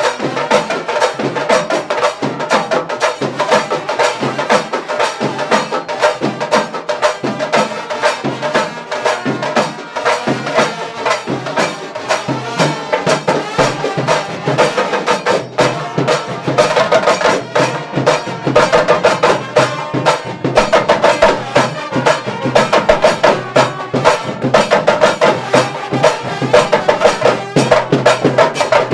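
Sri Lankan papare band playing a kawadi tune live: trumpets carry the melody over fast, unbroken drumming.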